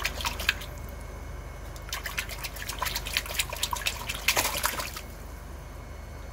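Water splashing and dripping in a shallow plastic tub as a crayfish is handled in it: a short burst at the start, then a longer run of splashes from about two seconds in, stopping near the five-second mark. A steady low hum runs underneath.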